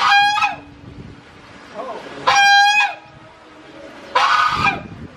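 Domestic goose honking: three loud, drawn-out honks about two seconds apart, the bird calling while being fed.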